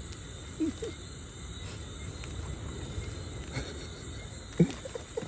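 Steady high-pitched insect drone over low rumbling outdoor noise, with a few short voice sounds about half a second in and again near the end.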